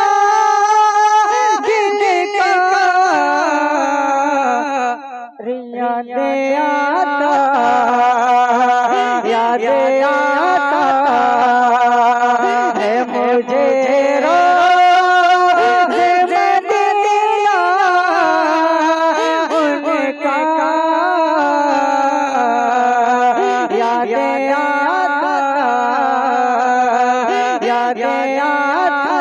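A man sings a naat solo into a microphone with no instruments, in long ornamented held notes with a wavering pitch. He breaks off briefly for a breath about five seconds in.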